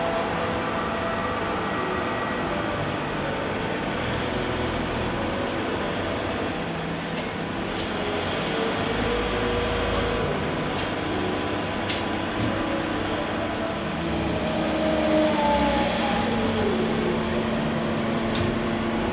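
Forklift engine running while loading large plates onto a trailer, its pitch shifting as it works, with a falling tone late on. Several sharp knocks sound through the middle and again near the end as the load is handled.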